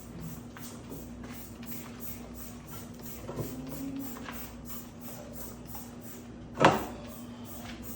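Scattered light clicks and knocks of household handling over a steady low hum, with one sharp, loud knock about two-thirds of the way through.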